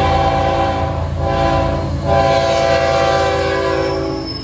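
Florida East Coast GE ES44C4 diesel locomotive's air horn sounding the grade-crossing signal. A long blast breaks off about a second in, a short blast follows, then a final long blast stops just before the end. The low rumble of the approaching diesel locomotives runs underneath.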